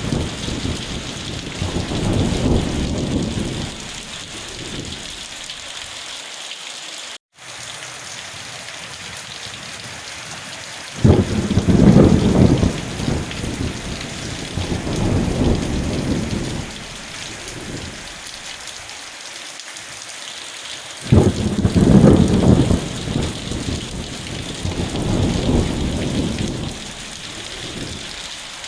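Steady heavy rain with rolling thunder: low rumbles at the start, again about eleven seconds in and about twenty-one seconds in, each starting sharply and dying away over several seconds. The sound cuts out for an instant about seven seconds in.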